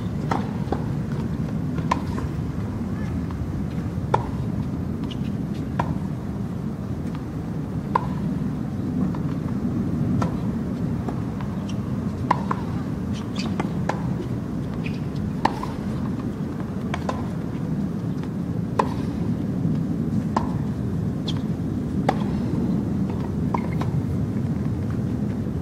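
Tennis ball struck back and forth with rackets in rallies: a sharp pock every second and a half to two seconds, over a steady low rumble.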